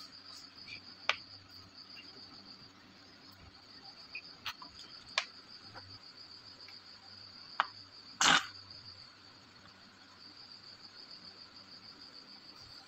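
A cricket chirps steadily in the background over a faint low hum. There are a few light clicks as wires are handled, and a short, loud crackle of noise about eight seconds in.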